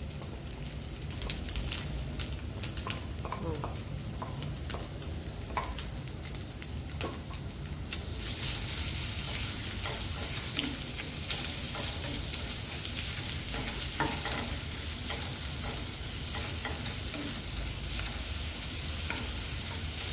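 Wooden spatula scraping and clicking against a nonstick frying pan and a wooden bowl as chopped chilies go into hot oil with shredded young papaya, over the sizzle of stir-frying. About eight seconds in, the sizzling grows louder and then holds steady, with occasional spatula clicks.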